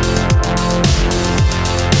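Electronic background music with a heavy beat: a deep drum hit that drops in pitch about twice a second over held synth notes.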